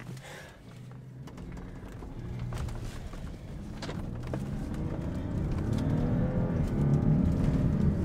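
A BMW car accelerating along an unpaved road, heard from inside the cabin: engine and tyre rumble that grows steadily louder, with the engine note rising in pitch through the second half.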